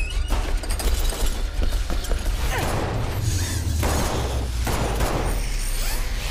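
Action-film sound mix: gunshots and sharp impacts in quick succession over a steady low rumble, with several longer swelling whooshes in the middle.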